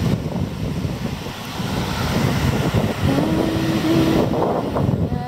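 Wind buffeting the microphone in a steady rush of noise, with a short held tone a little past three seconds in.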